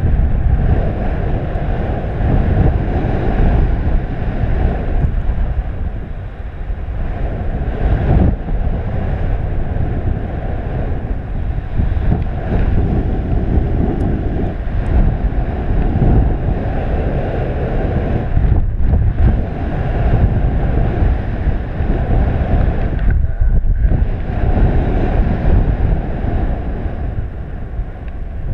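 Wind noise from airflow buffeting the microphone of a camera on a paraglider pilot in flight: a steady, loud, low rush.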